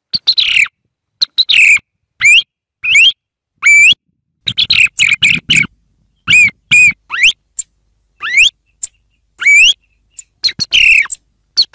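Song thrush singing: loud, short whistled and chirping phrases with rising and bending notes, several phrases repeated two or three times in a row, separated by brief pauses.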